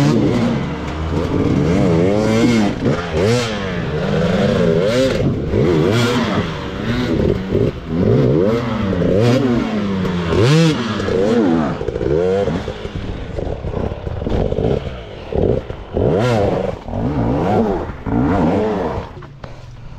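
Enduro dirt bike engine revved in repeated surges, its pitch climbing and dropping about once a second, with some clattering. It eases off near the end.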